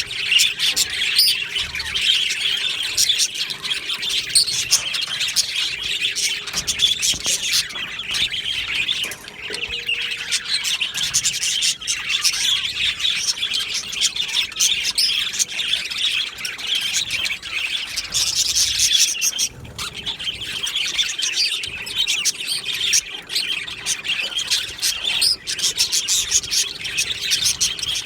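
A colony of budgerigars chirping and warbling together, many birds calling over each other in a dense, continuous chatter.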